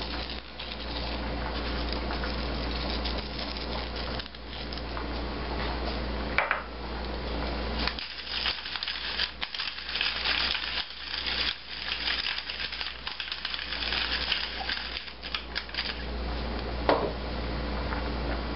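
Glass pepper mill being twisted over the meat, grinding black pepper in a fast run of gritty clicks from about eight seconds in, lasting several seconds. A steady low hum runs underneath.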